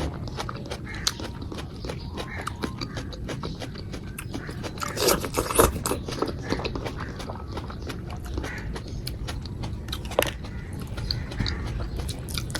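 A person chewing and biting through a meal of rice, dal and vegetables: a steady run of wet mouth clicks and smacks, with a few louder bites about five to six seconds in.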